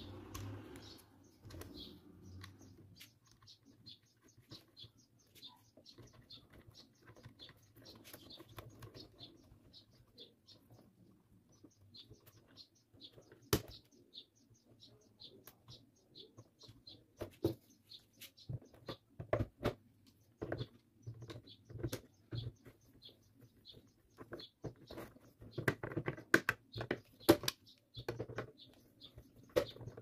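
Small irregular metal clicks and taps from hand tools, a thin rod and then pliers, working at the motor hub and shaft of a Tron fan. The clicks are busier in the last few seconds, and faint bird chirps come and go behind them.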